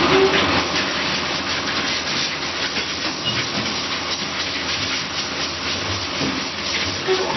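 Automatic casting machine for rubber-mould jigs running: a steady hissing, rattling machine noise with many small clicks, and a brief short tone near the start and again near the end.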